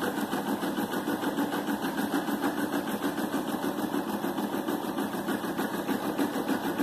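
Brother PE460LDV computerized embroidery machine stitching a design: the needle mechanism runs steadily with a fast, even rhythm.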